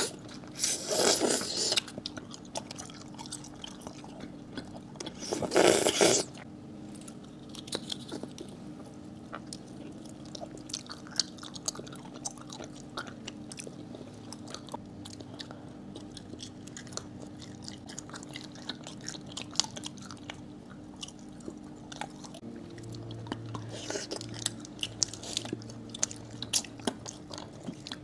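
Close-miked candy being bitten and chewed: two loud crunches in the first six seconds, then quieter chewing full of small crackles and clicks, with a busier run of crunching near the end.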